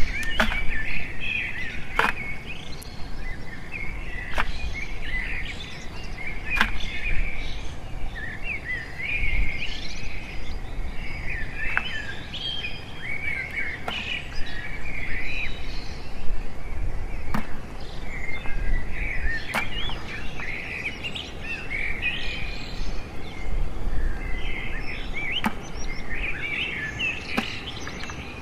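Small birds chirping and twittering continuously. Sharp clicks come every second or two as crabs are dropped into and scrabble against a plastic bucket.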